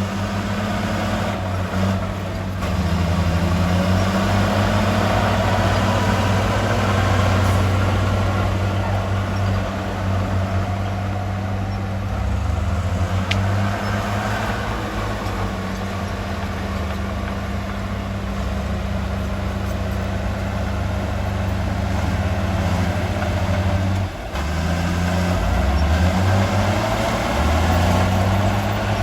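Heavy diesel engine of earthmoving machinery running steadily and loud, its pitch rising and falling several times as it works, with a brief drop in level a little after three quarters through.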